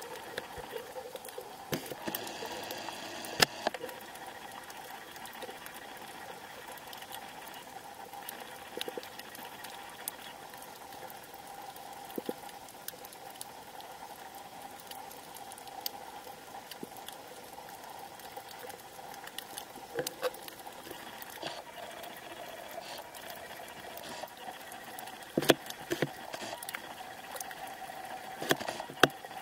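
Underwater reef ambience: a constant fine crackle of clicks over a steady hum, with a few louder clicks, mostly near the end.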